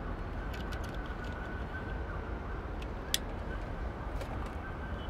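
Steady outdoor background rumble like distant traffic, with a few small light clicks; one sharper click comes about three seconds in.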